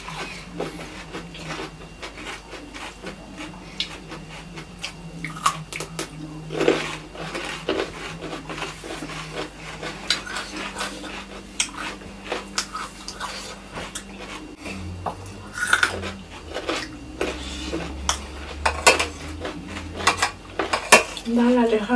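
Eating from metal plates: a spoon and fingers clink and scrape against the plates, giving many scattered short clicks, with more clinks near the end as the spoon scoops rice.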